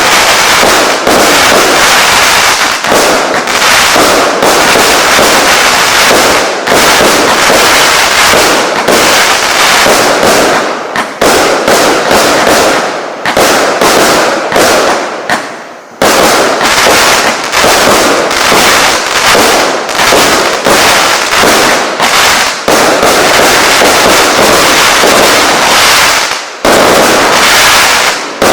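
A 0.8-inch-calibre fireworks battery (cake) firing shot after shot in rapid succession: loud, dense pops and bursts with crackle. The shots thin out briefly about fifteen seconds in, then start again suddenly.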